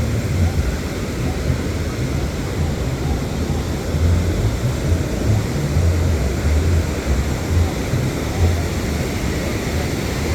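Wind buffeting the microphone in uneven low rumbles over the steady wash of ocean surf.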